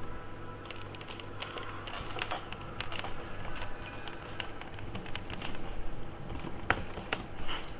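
Typing on a computer keyboard: a run of irregular quick key clicks.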